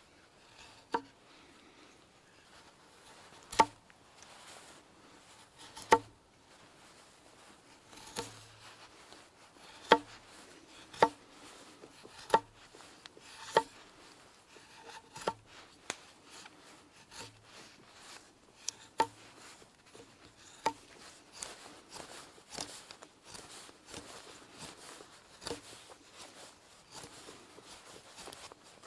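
Knife whittling a thin wooden stick: sharp cutting snicks, about a dozen loud ones spaced one to two seconds apart, giving way near the end to quicker, lighter shaving strokes.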